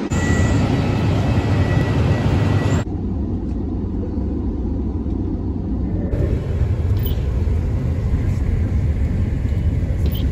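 Steady low rumble of vehicles in three stretches, each cut sharply into the next: loud jet and ground-vehicle noise on an airport apron, then the quieter rumble inside an airliner cabin from about three seconds in, then a car's interior road rumble from about six seconds in.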